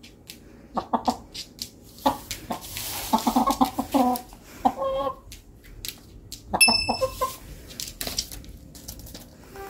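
A Korean Ogye black chicken clucking in several short runs of calls, with sharp clicking taps in between and one higher-pitched call past the middle.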